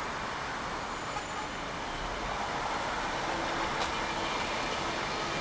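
Steady rumble of rail noise at a railway station platform, with a faint steady hum joining about three seconds in and one light click shortly after.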